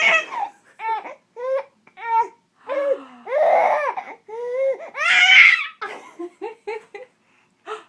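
A small child laughing: a run of short, high-pitched voiced bursts about two a second, with two longer, louder squeals in the middle and a quicker patter of short bursts near the end.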